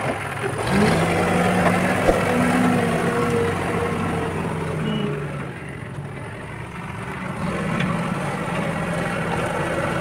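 Backhoe loader's diesel engine working under load, its pitch rising and falling as it is revved, with a tractor engine running alongside at first. The sound dips a little past halfway, then the engine picks up again steadily as the loader pushes soil with its front bucket.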